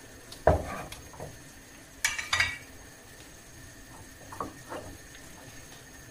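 Slices of raw ossobuco being set down one by one into a frying pan: a knock about half a second in, a short metallic clatter with a ringing clink about two seconds in, and two softer knocks later on.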